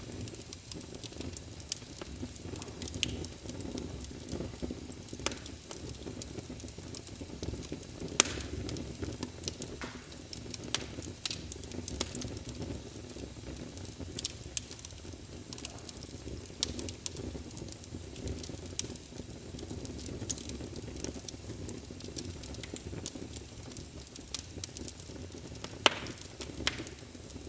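Wood fire burning in a fireplace: a steady low rumble of flames under frequent irregular crackles and pops, with a few louder snaps about 8 and 26 seconds in.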